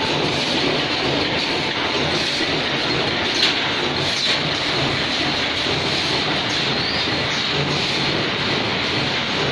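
Paper plate production line machinery running: the forming machine and conveyors make a steady mechanical clatter and hum, with a couple of sharp clicks near the middle.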